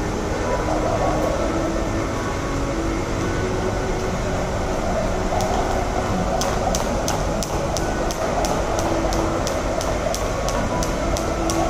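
Jump rope ticking against a paved floor in a steady skipping rhythm, about three sharp ticks a second, starting about five seconds in. A steady background rumble runs underneath.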